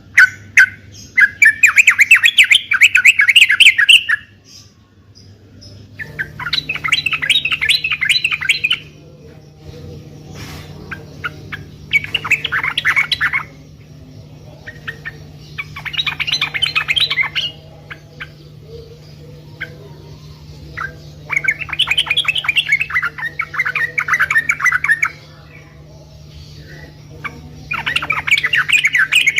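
Yellow-vented bulbul (trucukan) song: bursts of rapid, chattering notes, each lasting two to three seconds and repeated about every five seconds, over a faint steady low hum.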